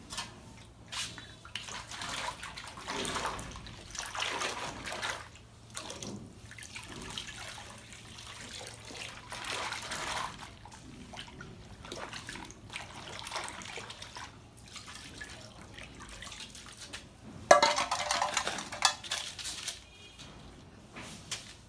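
Water sloshing and splashing in a container, coming in uneven surges, with a sudden louder burst of sound about seventeen seconds in.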